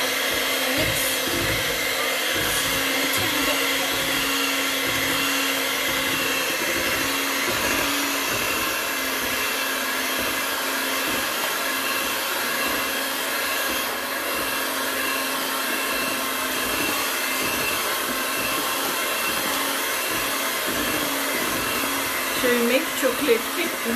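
Electric hand mixer running steadily, its beaters whisking chocolate cake batter in a metal bowl.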